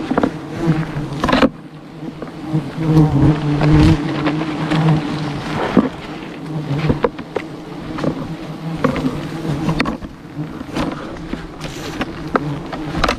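Giant honey bees buzzing close by, a steady hum that swells and fades, with a few sharp knocks scattered through it.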